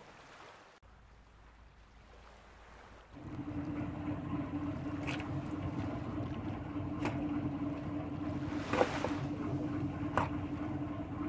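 Fishing boat's engine running with a steady hum, starting about three seconds in after a quiet opening, with a few sharp clicks and knocks over it.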